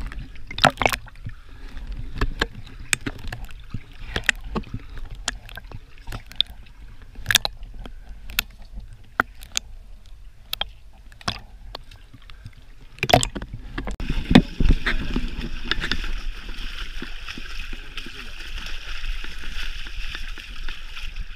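Water sloshing and splashing around swimmers, with scattered sharp knocks and clicks and a low rumble. About two-thirds of the way in, a steady rushing noise sets in and holds.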